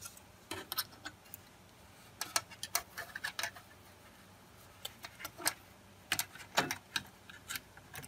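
Light clicks and taps of a PCIe adapter card, its metal bracket and circuit board knocking against the metal computer case while the card is fitted into a slot. The clicks come in small scattered clusters with quiet gaps between them.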